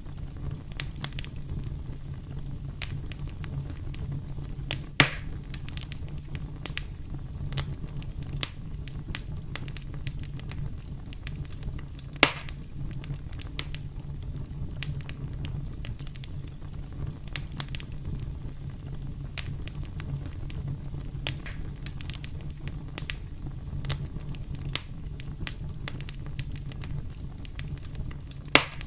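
Wood campfire crackling steadily: a low rumble of burning under constant small snaps, with three louder pops, about five seconds in, about twelve seconds in, and near the end.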